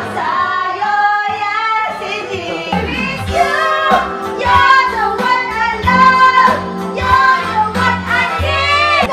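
Karaoke singing: a voice sung into a handheld microphone over a music backing track.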